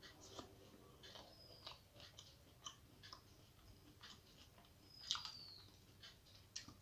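Faint close-up mouth sounds of eating rice and fried bitter gourd by hand: chewing with a run of soft wet clicks. A short high falling squeak sounds about five seconds in, the loudest moment.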